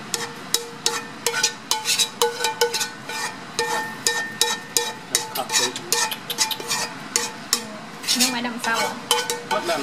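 A utensil scraping and tapping against a wok as thick sweet and sour sauce with vegetables is scraped out over a fried fish. Many short scrapes and clicks follow one another throughout.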